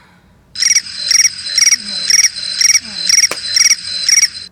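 Crickets chirping in a loud, even rhythm of about two chirps a second, starting suddenly and cutting off abruptly, like a cricket sound effect laid over the track.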